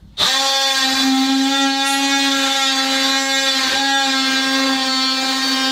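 Power tool switching on just after the start and running steadily at one constant pitch.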